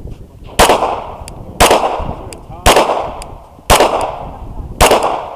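Gen 4 Glock 17 9mm pistol fired five times at a steady pace, about one shot a second, each shot loud and echoing. A faint tick follows each shot.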